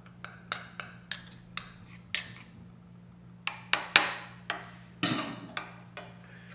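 Metal spoons clinking and scraping against a small ceramic bowl while honey is added to a sauce and stirred in: a string of sharp, irregular clicks, with louder knocks about two and four seconds in and a short scrape near the end.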